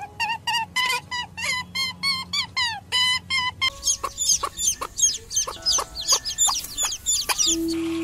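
A quick run of short pitched calls, about four a second. From about halfway, chickens clucking, with rapid high falling chirps over them. The calls stop just before the end.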